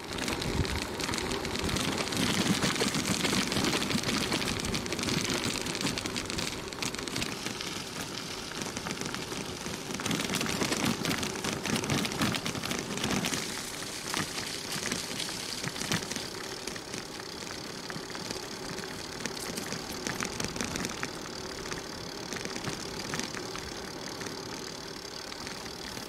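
Bicycle rolling over a gravel track and then rough, patchy tarmac: tyre crunch and rolling noise with a constant clatter of small rattles and ticks from the bike. It is loudest in the first few seconds on the gravel, then settles a little.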